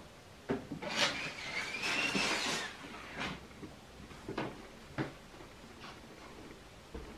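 A plastic snake tub sliding along an aluminium rack shelf: a scrape with a wavering squeak that lasts under two seconds, then three light knocks as the tub is pushed home.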